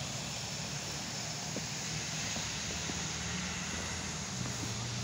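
Steady outdoor background noise: a low rumble under an even hiss, with no distinct events standing out.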